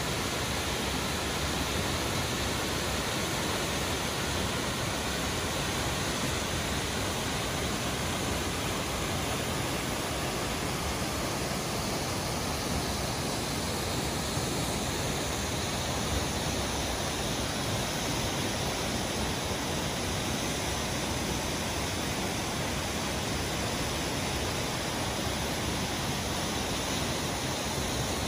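Steady, unbroken rush of water pouring over falls and through a rocky stream.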